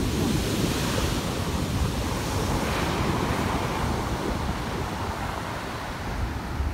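A large shorebreak wave crashing onto the beach, then the surf running up the sand and easing off. The crash is loudest in the first second or so.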